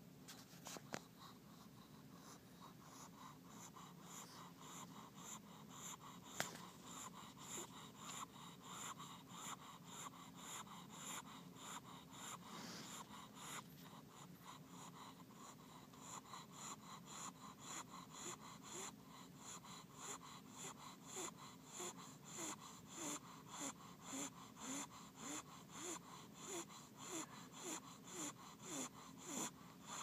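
Small long-haired dog snoring faintly in its sleep, with raspy, snuffling breaths that settle into a regular rhythm of about one a second from halfway through.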